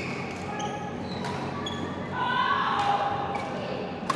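Badminton rackets striking shuttlecocks, a handful of sharp hits, against the echoing clatter of play on several courts. About two seconds in, a louder high squeal rises over it for about a second.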